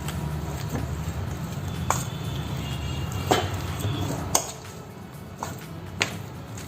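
Kitchen utensils and dishes knocking and clinking four times, over a low steady hum that drops off about two-thirds of the way through.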